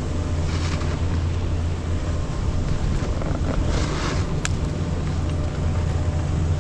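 Wind buffeting the action camera's microphone while snowboarding downhill, a steady low rumble, with two brief hisses of a board edge scraping the snow, about half a second in and again near four seconds.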